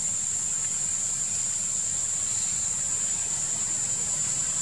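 Steady, high-pitched insect drone that does not break or change, over a low, even rumble.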